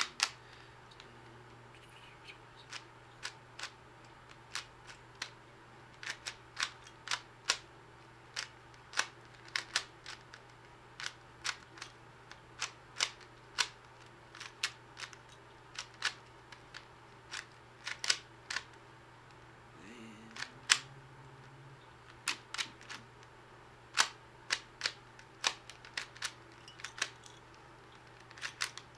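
3x3 Rubik's Cube being turned by hand, its plastic layers clicking sharply with each turn, one or two clicks a second in uneven runs with short pauses between moves.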